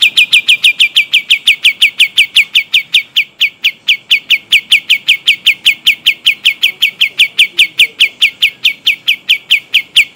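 Kapas tembak, a bulbul, singing a long unbroken rolling trill: a fast, even string of loud whistled notes, about five a second, each slurring slightly downward.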